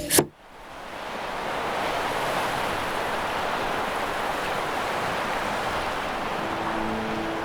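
Sea surf washing on a beach, a steady rush of noise that fades in and then holds. Faint sustained musical tones enter near the end.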